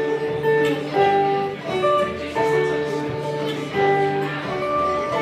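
Live acoustic string band of banjo, upright double bass and acoustic guitar playing a traditional-style song together, the bass holding a steady low line under plucked and strummed notes.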